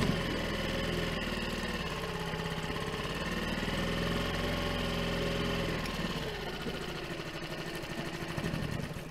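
Tohatsu Sail Pro 6 four-stroke outboard running starved of fuel, its fuel line disconnected so that it runs the carburetor dry. Its speed swells and sags as the choke is worked, then it dies away at the end as the last gas runs out.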